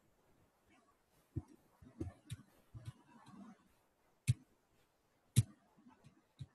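Computer mouse clicks: about half a dozen separate sharp clicks spread irregularly, the loudest about four and five and a half seconds in.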